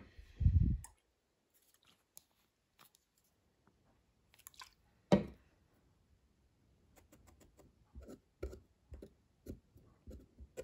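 Handling noise of a folding knife and a cotton swab on a silicone work mat: a low thump about half a second in, a sharp knock about five seconds in, then a run of small taps and scrapes as the swab is worked around the knife's pivot screws.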